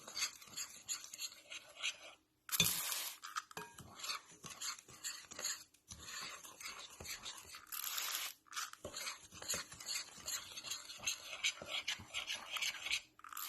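A spoon stirring and scraping a dry powdery mix of washing soda, citric acid and salt in a bowl. Three hissing spritzes from a trigger spray bottle of diluted cleaner come in: a few seconds in, about midway, and at the end.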